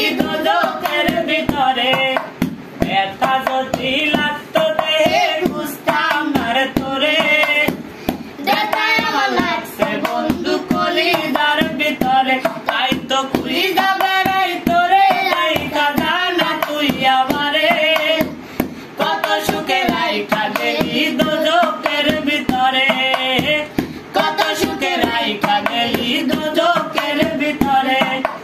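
Bengali folk song sung by a young man, with a child's voice joining in, accompanied by rhythmic hand-drumming on an upturned aluminium cooking pot used as a drum.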